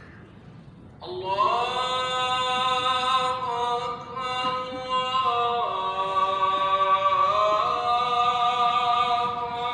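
An unaccompanied voice chanting in long, held notes that step slowly up and down in pitch, starting about a second in.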